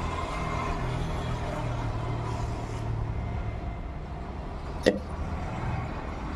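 A single short, sharp hiccup about five seconds in, over a steady low rumble.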